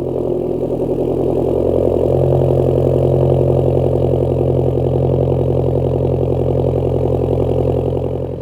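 A 2014 Ford Focus SE engine with the resonator and muffler deleted (only a tip on the exhaust), running at a steady engine speed with an even exhaust drone.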